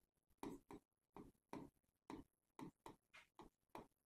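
Faint pen strokes on an interactive whiteboard while the words "alkyl carbocation" are written: about a dozen short scratches and taps, evenly spread.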